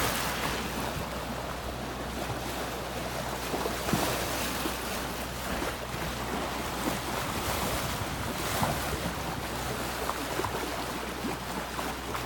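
Sea water rushing along the hull of a sailboat under way, with wind buffeting the microphone.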